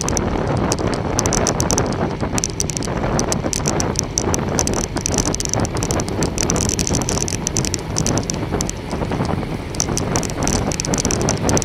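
Bicycle being ridden at speed: wind rushing over the microphone and tyre noise, with quick irregular ticking and rattling from the bike throughout.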